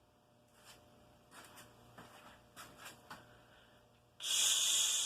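A person shushing: one loud 'shh' hiss about four seconds in, lasting just under a second, after a few faint rustles.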